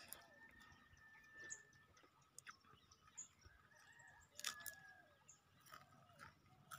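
Near silence: a few faint clicks and smacks of a person eating watery rice by hand and chewing, with faint bird chirps in the background.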